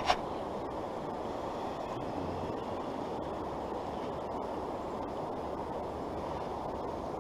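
Steady rushing of a creek's current flowing over riffles, with a brief sharp click right at the start.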